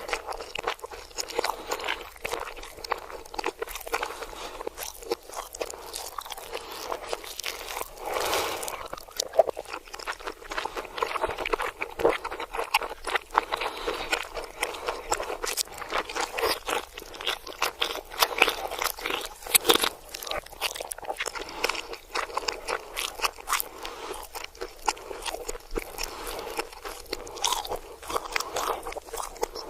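Close-up eating sounds played in reverse: dense, irregular crunching and biting from someone chewing crunchy food.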